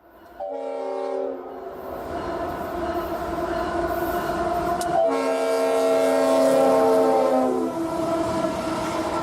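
GE ES44AH diesel locomotive horn, a chord of several notes, sounded twice: a short blast about half a second in and a longer one from about five seconds to nearly eight, over the steady running of the locomotive.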